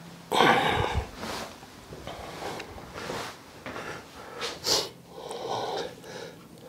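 A man's short breaths and rustling as he moves about and handles soft plush teddy bears: a string of brief, noisy rustles, the loudest about half a second in.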